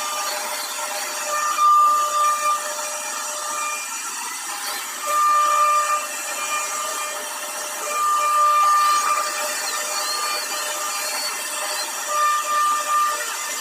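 CNC router spindle running with a steady high whine while the bit carves a design into a door panel. The sound grows louder for a second or so about four times as the cutter works through the material.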